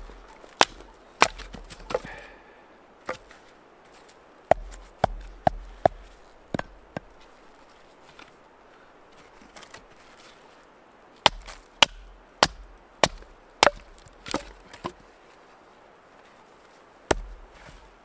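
Fixed-blade bushcraft knife splitting firewood: sharp wooden knocks in irregular bursts, a quick run of strikes about halfway in, another after a pause, and a single knock near the end.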